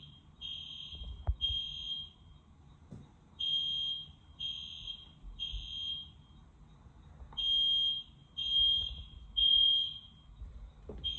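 Edwards EST Genesis fire alarm horn sounding a high-pitched beeping tone, one that sounds like a smoke detector, in the temporal-three evacuation pattern: three beeps, a pause, three beeps, repeating three times, with a fourth group starting at the very end.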